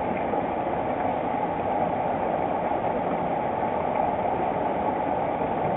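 Steady rushing of creek water, an even noise with no separate sounds standing out.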